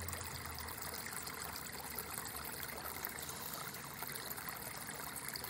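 Steady, even hiss with a faint low hum underneath, unchanging throughout.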